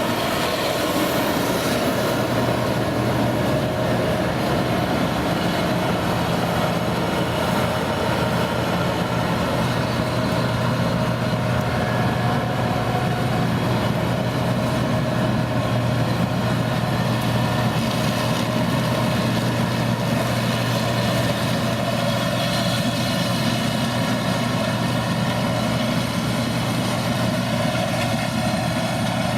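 Large farm machine's diesel engine running steadily at working speed, with a constant even hum and whine.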